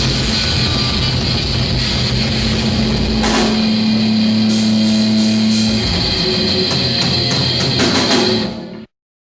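Metal band playing live: distorted electric guitar, bass guitar and drum kit at full volume. Near the end the sound falls away and cuts off abruptly to silence.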